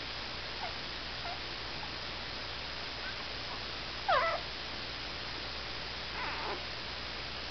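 Young corgi puppies squeaking and whimpering: a few faint squeaks, then a louder wavering whine about four seconds in, and a fainter cry about two seconds later, over a steady hiss.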